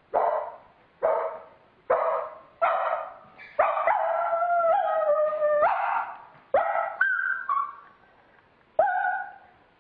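A person imitating a puppy with their voice: a run of about eight short, sharp barks, with a drawn-out whine held for about two seconds near the middle.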